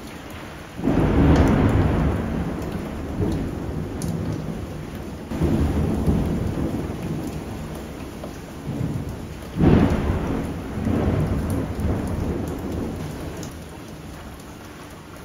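Cubed pork frying in a nonstick wok and stirred with a slotted spatula: a noisy sizzle and scrape that swells in about four waves as the meat is turned. Partway through, chopped young tamarind leaves go into the pan and are stirred through.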